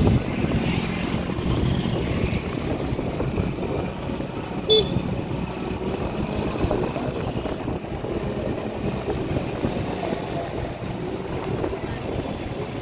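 Steady traffic noise of motorcycle and car engines, heard from a moving vehicle, with a short horn toot about five seconds in.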